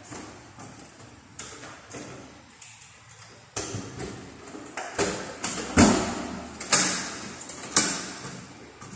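Keys and a door lock being worked: a run of sharp metallic clicks and knocks that starts about three and a half seconds in, the loudest near the six-second mark.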